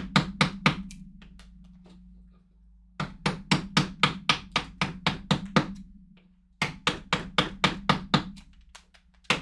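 A mallet tapping a carving chisel or gouge into a block of wood: three runs of quick, even strikes, about five a second, with short pauses between runs.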